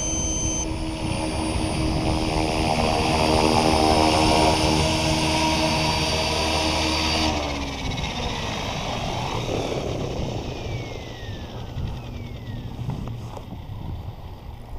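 Gaui X5 electric RC helicopter's main rotor and motor whine steadily in flight. About seven seconds in, after it sets down, the power is cut sharply and the rotor spools down with falling whines that fade away.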